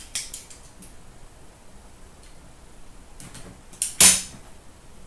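Cardboard packaging of a trading-card box being handled and torn open: a few light crackles and clicks, then a short loud rip about four seconds in.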